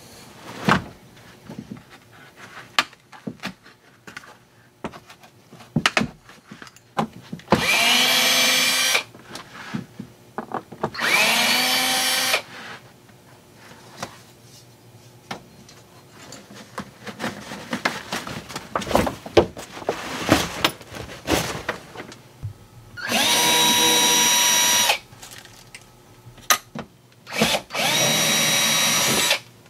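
Black+Decker cordless drill spinning out bolts in four bursts of about two seconds each. Each burst rises quickly to a steady whine. Between the bursts come scattered clicks and knocks of bolts and trim pieces being handled.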